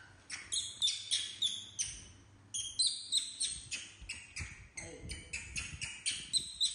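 Baby macaques giving rapid, short, high-pitched squeals, about three a second with a brief break about two seconds in: impatient begging calls for food.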